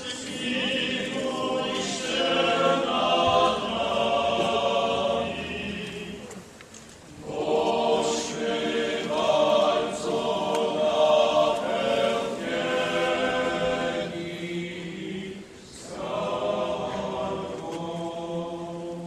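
Choir singing in long held phrases, with short breaks about seven seconds in and again near sixteen seconds.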